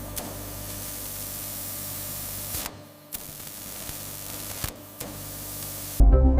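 Steady hissing machine noise over a low hum, from factory equipment on a circuit-board production line. It drops out briefly twice, and music comes in near the end.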